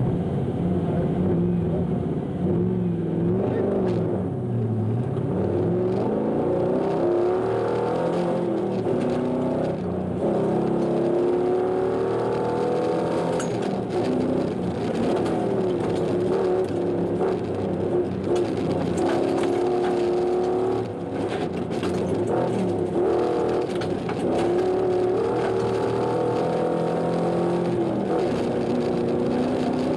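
Fornasari rally 4x4's engine heard from inside the cabin under hard acceleration. The pitch climbs and drops back again and again as it revs up through the gears and eases for bends, with scattered knocks from the car.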